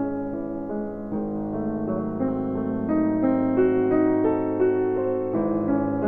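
Background music: a gentle piano melody over sustained held chords.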